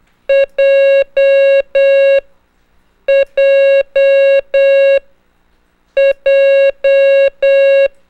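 Morse code practice tone sending the letter J (di-dah-dah-dah) three times: one short beep and three long beeps, repeated about every three seconds. It is a steady, buzzy electronic beep at a single pitch.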